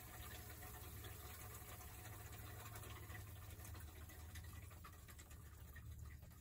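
Near silence: a faint steady low hum with a few scattered faint ticks.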